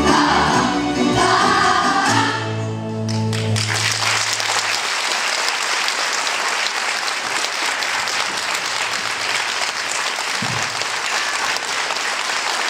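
A school tamburica orchestra with singing voices ends a piece on a held final chord, and about four seconds in the audience breaks into steady applause.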